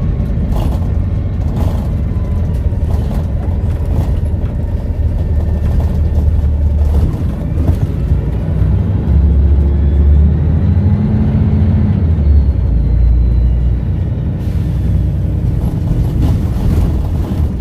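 Volvo B7RLE bus's diesel engine running under way, a heavy low rumble that swells through the middle. A faint whistle from the turbo rises in pitch, with light rattles in the first few seconds.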